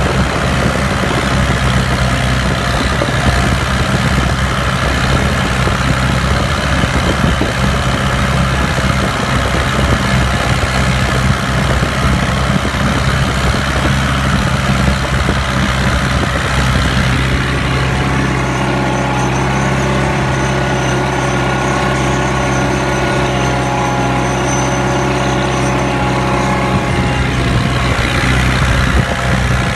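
Massey Ferguson 178's four-cylinder Perkins diesel running steadily at full throttle under load, pulling a plough, heard from the driver's seat. Between about 18 and 27 seconds in, its note changes: the deep part drops back and higher steady tones come through.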